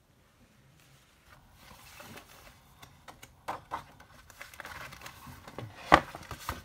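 Paper rustling and sliding as a pad of patterned scrapbook paper is handled and its sheets lifted and flipped, with scattered small clicks and one sharp knock near the end.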